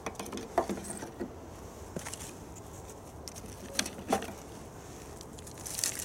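A few scattered light clicks and knocks, irregularly spaced, over a quiet background hiss.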